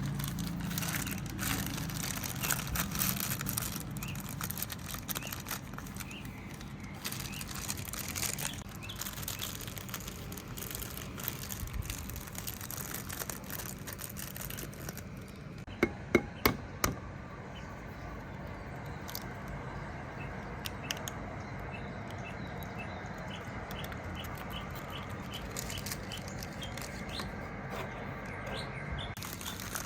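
Birds chirping in short repeated calls over a steady low city hum, with three sharp knocks in quick succession about halfway through.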